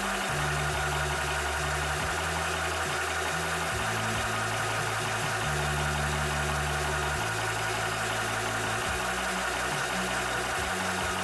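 Cobra high-pressure PCP air compressor running steadily while pumping, a continuous mechanical hum and whine with a shifting low drone.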